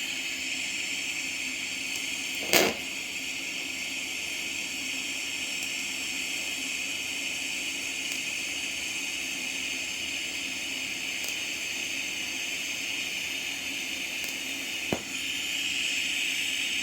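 TIG welding arc burning steadily, a constant buzzing hiss, with a sharp click about two and a half seconds in and a smaller one near the end.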